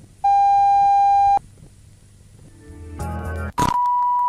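Electronic broadcast-style alert tones: a steady beep lasting about a second, then a buzz that grows louder and ends in a short burst of static, followed by another steady tone starting near the end.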